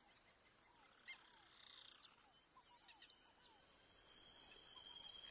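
Faint jungle ambience: a steady high-pitched insect hum with scattered short chirps.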